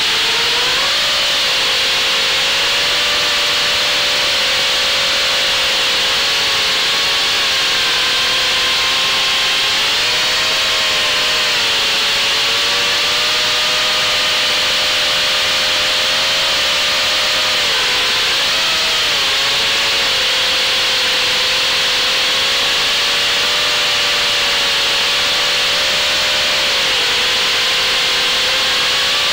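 Electric motors and propellers of an FPV quadcopter, recorded from its onboard camera: a steady buzzing whine over a loud hiss, its pitch rising and falling as the throttle changes.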